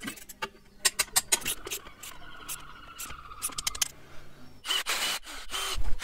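Irregular metallic clicks and light scraping from motorcycle parts being handled and fitted, in clusters near the start and again partway through, with a noisier scrape near the end.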